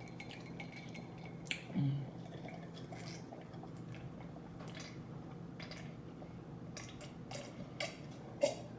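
Close-miked eating sounds: chewing with scattered wet mouth clicks and smacks over a faint steady hum, with a short low "mm" a little under two seconds in and a quicker run of clicks near the end.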